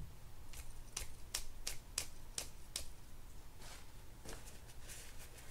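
Spinning-reel handle knob being turned on its shaft to work fresh oil in, giving a run of light, regular clicks about two or three a second that thin out and grow fainter after a couple of seconds. A soft bump right at the start.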